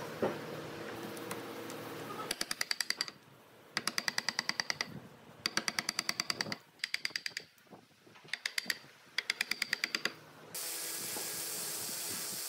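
Power chisel hammering into a pine block in short bursts of rapid strokes, about a dozen a second, chipping out wood. A power tool hums steadily for the first two seconds, and near the end a spinning sanding drum sets up a steady whir.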